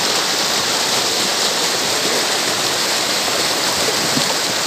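Fast, shallow rocky stream rushing over stones and through rapids, a loud, steady rush of water close to the microphone.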